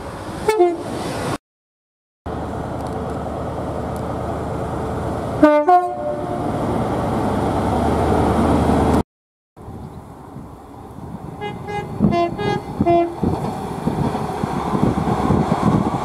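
Three British trains sounding their horns in turn, separated by abrupt cuts. First a Class 390 Pendolino gives a brief blast that falls in pitch. Then an HST power car sounds a two-note horn, low then high, followed by a steady, growing rumble of its diesel engine and wheels as it comes by. Last, a Northern multiple unit gives several short two-note toots.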